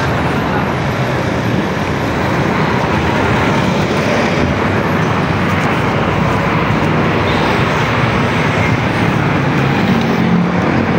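Steady road traffic noise from cars and other vehicles going past on a busy street.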